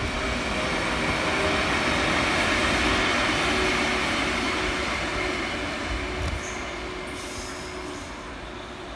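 Two coupled electric locomotives, ED75 757 among them, rolling past on the rails: a continuous wheel-and-rail rumble with a faint steady tone over it, growing to its loudest about three seconds in and then fading as they draw away.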